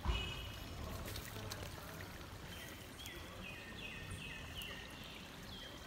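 Steady trickling, flowing water. In the second half a bird gives a quick series of short, high, stepping-down notes. There is a low bump right at the start.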